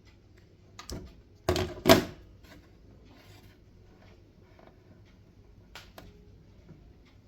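A few sharp clicks and knocks, the loudest two close together about a second and a half in, then scattered faint ticks and two more clicks near the end.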